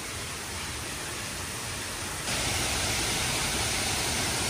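Steady rushing hiss of background noise, which turns louder and brighter about two seconds in.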